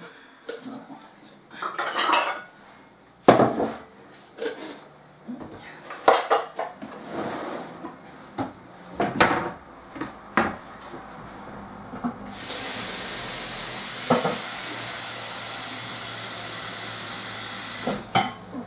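Dishes and containers knocking and clattering on a kitchen worktop. About twelve seconds in, a kitchen tap runs steadily for about six seconds as a bowl is filled with cold water, then is shut off.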